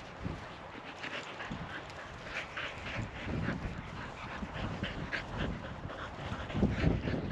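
English springer spaniel panting in quick, short, even breaths.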